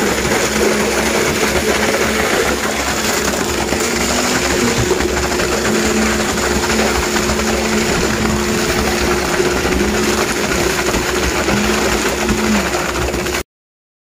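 Concrete pump truck running while concrete pours from the pump hose: a steady mechanical hum with a second tone that cuts in and out. The sound stops abruptly near the end.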